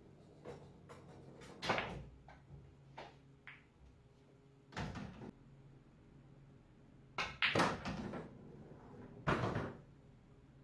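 Pool balls being played on a pool table: a string of sharp clacks and knocks as the cue tip hits the cue ball, balls hit each other and a ball drops into a pocket, loudest about two, eight and nine and a half seconds in.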